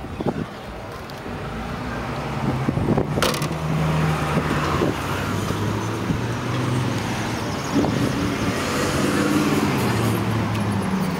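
Street traffic: car engines running and passing with a steady, wavering low hum. A single sharp knock about three seconds in.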